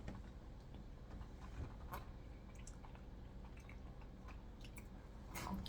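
Faint chewing of snack food, with a few soft clicks scattered through.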